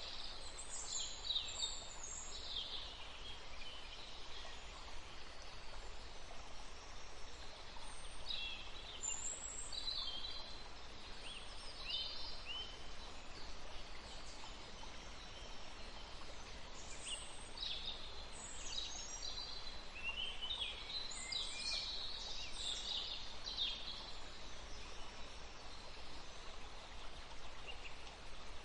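Small birds chirping and trilling in scattered bursts, busiest near the start, around a third of the way in and again past the middle, over the steady hiss of a small river.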